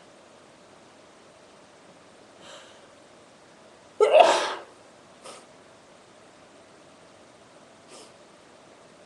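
A woman sneezing once, loud and sudden, about four seconds in, followed a second later by a short, fainter sound.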